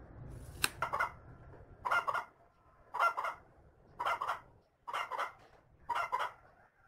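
A chicken clucking over and over, about once a second. A sharp click comes just before the first cluck.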